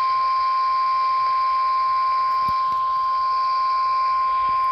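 NOAA Weather Radio 1050 Hz warning alarm tone: one steady, unbroken high tone. It is the signal that a warning message, here a flash flood warning, is about to be broadcast.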